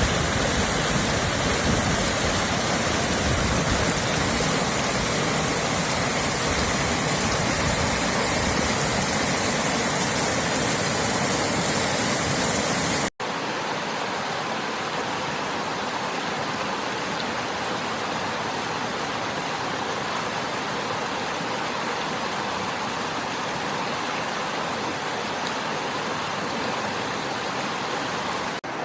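Running river water: a steady, loud rush. About 13 s in, it cuts abruptly to another stretch of water with less deep rumble, and there is a further brief cut near the end.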